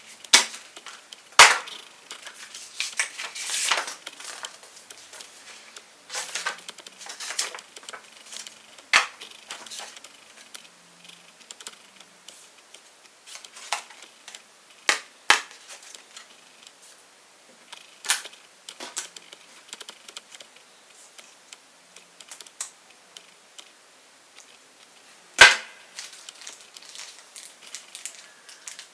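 Packaging being handled while unboxing: scattered sharp clicks and snaps, a few of them loud, with lighter rustling between.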